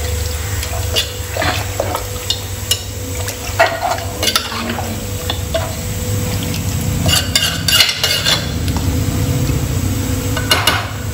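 A spoon stirring mutton and masala gravy in a metal pressure cooker, with irregular scrapes and knocks of the spoon against the pot over a low steady hum.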